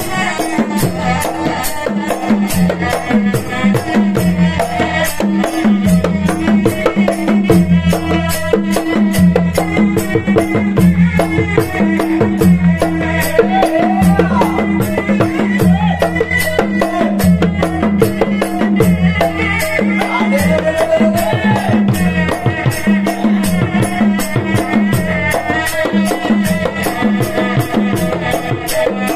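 Traditional Malay ensemble playing: a serunai's reedy, gliding melody over a fast, steady beat of hand-struck gendang barrel drums, with large hanging gongs humming underneath.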